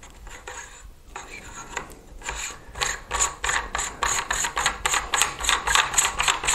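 Moderator being screwed by hand onto the threaded muzzle of a Cometa Orion bullpup air rifle: a run of short scratchy rasps as the threads turn. They are faint at first, then come about three or four a second and grow louder from about halfway.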